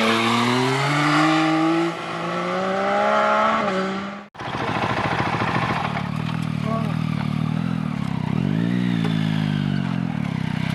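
Motorcycle accelerating hard, its engine pitch climbing, dropping at a gear change about two seconds in, then climbing again. It cuts off abruptly about four seconds in. A motorcycle engine then idles steadily, with a brief throttle blip rising and falling near the middle.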